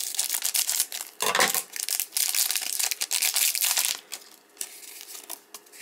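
A clear plastic card pack is crinkled and torn open, a dense crackling rustle for about four seconds. It then drops to a few soft clicks of cards and plastic being handled.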